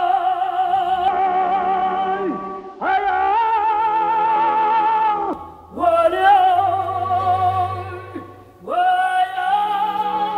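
A woman singing a run of long high held notes with wide vibrato, each phrase swooping up at its start and dropping away at its end, over low sustained accompaniment.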